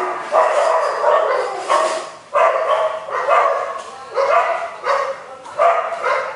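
An animal whining and yelping: short cries repeated about once a second, each bending up and down in pitch.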